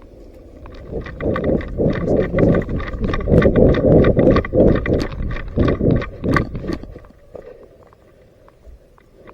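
Quick, rhythmic running footsteps, about four a second, loud and close, starting about a second in and fading out about seven seconds in.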